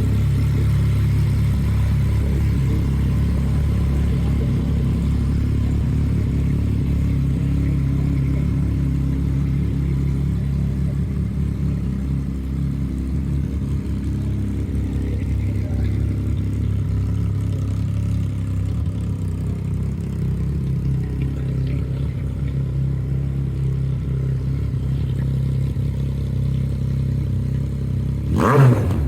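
Yamaha MT-09's three-cylinder engine idling steadily through an aftermarket Black Widow exhaust, then revved up briefly near the end.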